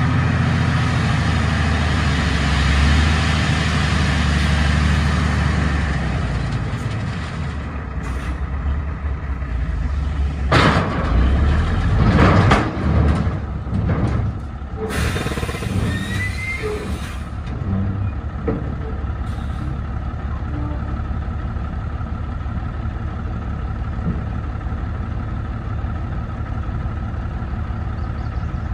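A heavy work vehicle's engine running, loudest for the first six seconds, then easing off. A cluster of loud, hissing bursts comes about ten to fifteen seconds in, and the engine runs on steadily after them.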